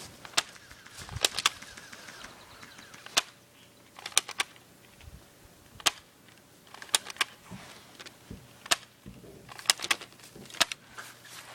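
Airsoft guns firing sharp single shots and quick pairs at irregular intervals.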